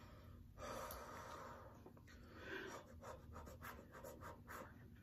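Faint breathing and light scratchy, scraping sounds of someone eating.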